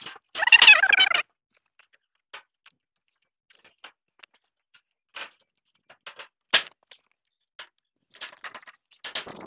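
Scattered crinkles, rustles and clicks of a perforated plastic sprinkler pipe being handled and pressed against corrugated roof sheeting, with a denser rustle in the first second and a single sharp click about six and a half seconds in.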